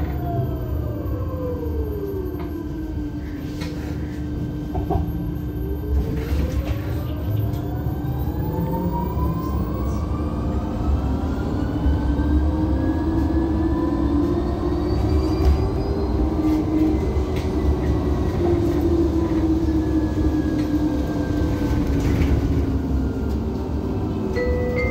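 Electric traction drive of a KAMAZ-6282 electric bus whining over a steady rumble of tyres and road, heard inside the cabin. The whine falls in pitch as the bus slows, rises steadily for over ten seconds as it speeds up again, then slowly falls.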